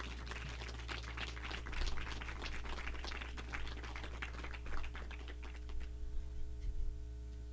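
Scattered light clapping, a dense patter of irregular claps, over a steady electrical hum from the sound system.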